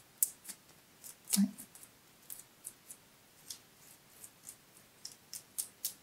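Irregular short, dry scratches and clicks of a thin wooden stick scraping glitter glue in and out of the scales of small cones on a twig, with one short low sound about a second and a half in.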